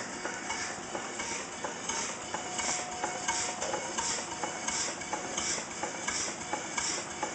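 Small vertical bottle-frame stationary steam engine (3-inch bore, 4-inch stroke) running steadily at slow speed. Its exhaust puffs come in a regular rhythm of about one and a half a second, with light clicking from the moving parts.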